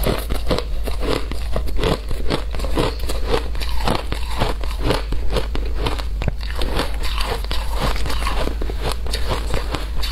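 Close-up crunching of shaved ice being chewed, in quick, continuous crunches several times a second.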